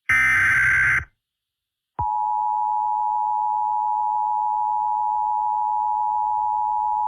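Emergency Alert System header: a harsh digital data burst lasting about a second, a second of silence, then the EAS attention signal starting about two seconds in, a steady two-tone sine (853 and 960 Hz) held unchanged.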